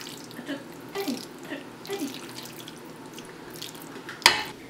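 A utensil scooping saucy lasagna noodles out of a skillet into a ceramic bowl. There are a few short, wet squelches about every half second, then one sharp clink near the end.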